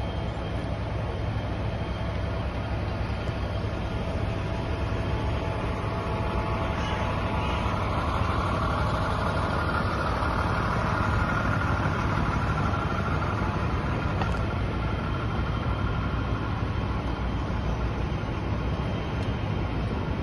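Passenger coaches of a passing train rolling along the rails, a steady rumble of wheels on track that swells a little around the middle.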